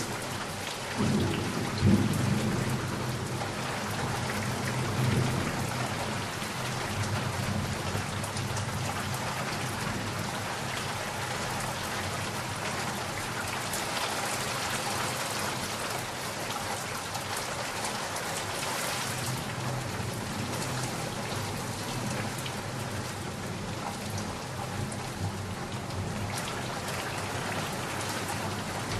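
Thunderstorm: steady rain falling, with rumbles of thunder about a second and two seconds in and again near five seconds, then rain alone.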